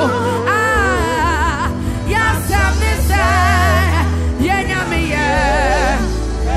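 Live gospel praise and worship music: a male lead singer sings with a wide vibrato over a band with bass guitar and keyboard holding steady low notes.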